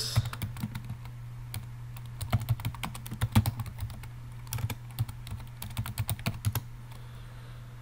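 Typing on a computer keyboard: keys click in quick runs with short pauses between, and stop shortly before the end. A steady low hum runs underneath.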